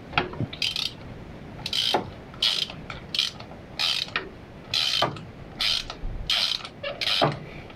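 Hand socket ratchet clicking in short bursts, roughly one every half second to a second, on its back strokes as it unscrews spark plugs with a spark plug socket.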